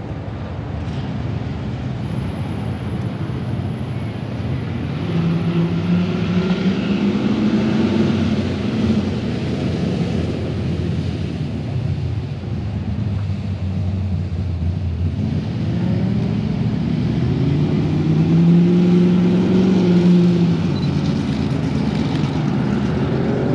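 Cars driving past on the road, each engine note rising and then falling away as it passes. There are two passes, the first about five seconds in and the second about sixteen seconds in, over a steady low rumble of traffic.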